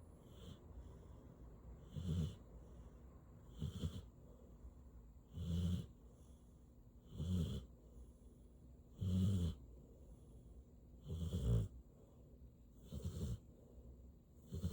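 Mixed-breed dog snoring in its sleep, a low snore repeating in a steady rhythm about every two seconds, the first about two seconds in.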